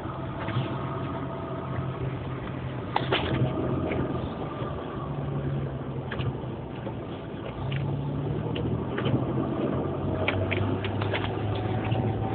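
A vehicle engine running at a low, steady pitch that steps up or down a few times, with scattered sharp clicks. The clicks come once about three seconds in and in a quick cluster near the end.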